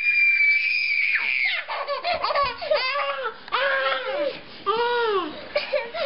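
A toddler's long, high-pitched held screech that stops about a second and a half in, followed by a string of short squealing giggles and laughs.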